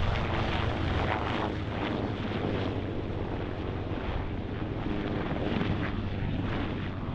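Marine Corps UH-1Y Venom and AH-1Z Viper helicopters flying low overhead: steady rotor and turbine engine noise.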